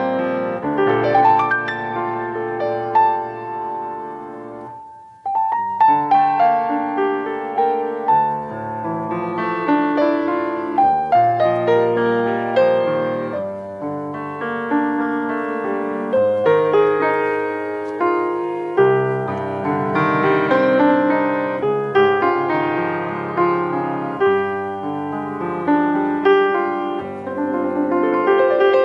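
Grand piano played solo: changing chords and a melody, with a brief pause about five seconds in before the playing resumes.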